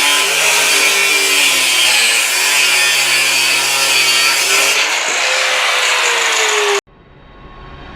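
An 800 W, 125 mm LEPSE MShU-0.8-125 angle grinder running with its disc loaded against the work: a loud, harsh hiss over a motor whine whose pitch shifts and sags as it bites. It cuts off abruptly near the end, leaving a much quieter low rumble that swells.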